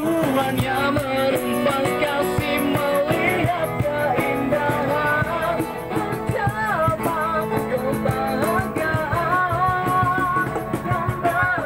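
Live acoustic band playing: a voice singing a melody over strummed acoustic guitar, with a steady beat of hand-played cajon.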